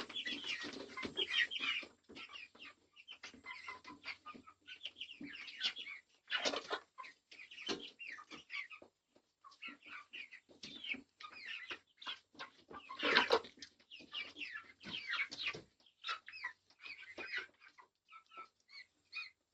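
A flock of chickens clucking and chirping in their coop: many short overlapping calls, with one louder call about two-thirds of the way through.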